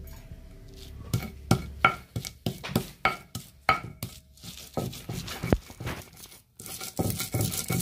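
Stone pestle pounding and grinding a spice paste on a flat stone grinding slab: a run of sharp stone-on-stone knocks, roughly two a second, then steadier rubbing and scraping near the end.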